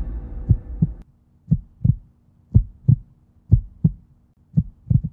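Heartbeat sound effect: paired low thumps, lub-dub, about one beat a second. For about the first second it plays over loud stadium crowd noise, which cuts off suddenly.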